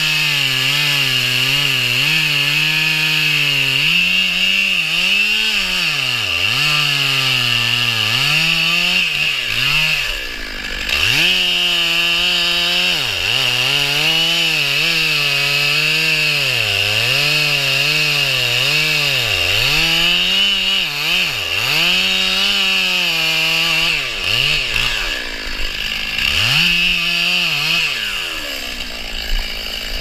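Stihl two-stroke chainsaw at full throttle cutting through a felled log. The engine pitch dips again and again as the chain bites into the wood and picks back up each time. The throttle lets off briefly about ten seconds in, and the saw eases off near the end.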